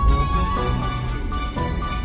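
Instrumental background music: a melody over a steady beat.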